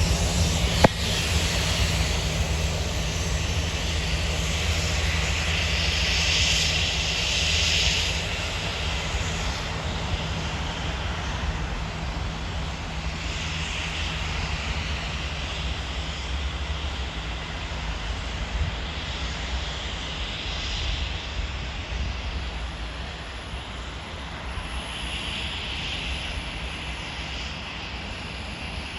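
Diesel locomotives of a railhead pressure-washing train, a Class 66 and a Class 56, running with a steady low drone that slowly fades as the train moves away. A steady hiss runs underneath. There is a sharp click about a second in.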